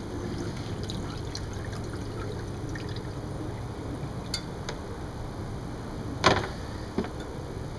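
Electrolyte water trickling and dripping off a cast iron muffin pan as it is lifted out of a bucket of washing-soda solution. About six seconds in comes a sharp knock as the pan is set down in a plastic tub, and a lighter knock a moment later.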